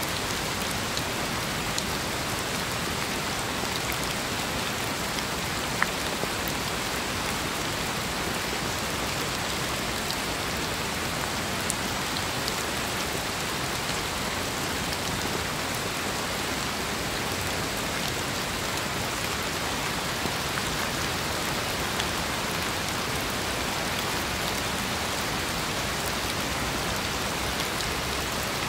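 Steady rain falling, an even hiss of many drops, with now and then a single sharper drop standing out.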